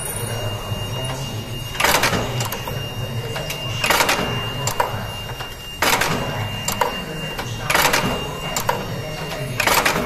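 Huen Chen HC-12RPA riveting machine setting rivets in draw latches: five short, sharp strokes about two seconds apart, over the steady hum of the running machine.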